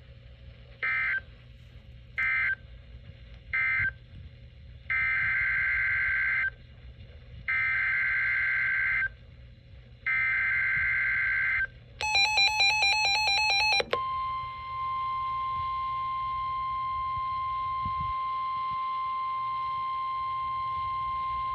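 Emergency Alert System SAME data bursts: three short end-of-message bursts about a second apart, then three longer header bursts announcing the next alert. About twelve seconds in comes a rapid pulsing beep lasting about two seconds, followed by the steady, single-pitched 1050 Hz NOAA Weather Radio warning alarm tone.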